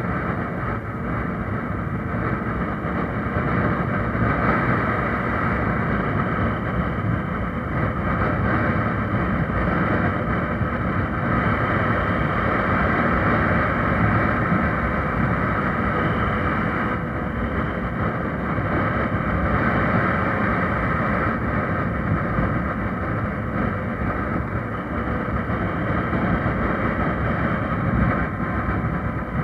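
Honda motorcycle running steadily at cruising speed, about 65 km/h, with wind and road noise on the microphone.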